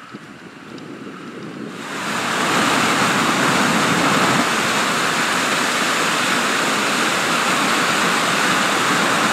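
Rushing water of a rain-swollen river: a steady, full rushing noise that swells up about two seconds in and then holds steady.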